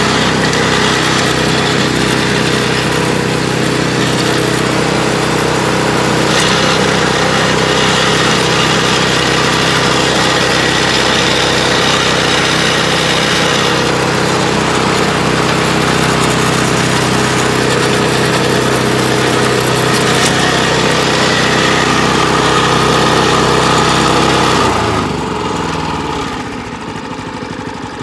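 Harbor Freight 212cc Predator Hemi single-cylinder engine on a Craftsman track-drive snowblower running steadily at high throttle. About 25 seconds in its pitch falls and it settles to a lower, slower, pulsing idle.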